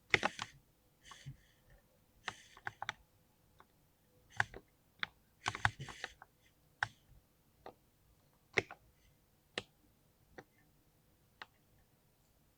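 Mechanical keyboard with linear switches being typed on in irregular spurts: quick clusters of keystrokes at the start, around two seconds in and around five to six seconds, then single key presses spaced a second or so apart.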